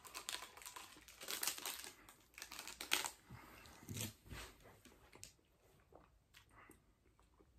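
Soft rustling and crinkling from hands handling things and clothing moving, with scattered small clicks. It is busiest in the first three seconds and thins out to faint ticks after about five seconds.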